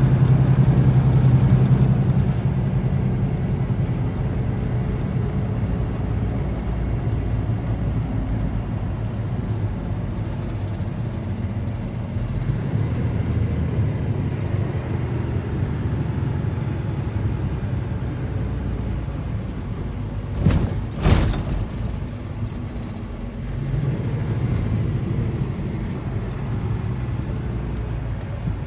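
Truck engine and road noise heard from inside the cab while driving: a steady low drone, a little louder for the first two seconds, with a faint high whistle. Two short sharp knocks come about twenty seconds in.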